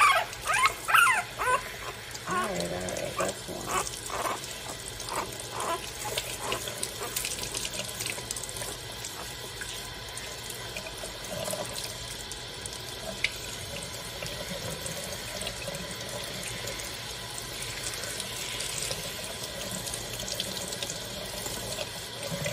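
Kitchen sink sprayer running steadily as a very young bulldog puppy is bathed under it. The puppy lets out a string of high squealing cries in the first couple of seconds and a few fainter whimpers after, then mostly the water is heard.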